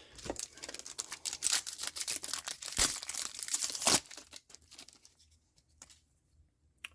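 A foil trading card booster pack being torn open and its wrapper crinkled for about four seconds, the loudest tearing near the end of that stretch, followed by a few faint handling clicks.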